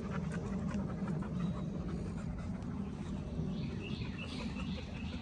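Bully-breed dogs panting steadily in the heat, with a few faint bird calls partway through.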